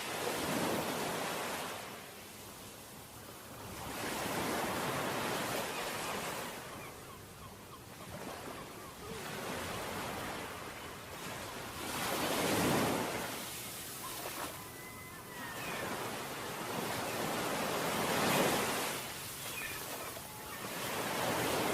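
Wind and surf on a beach: a steady rushing noise that swells and fades every few seconds.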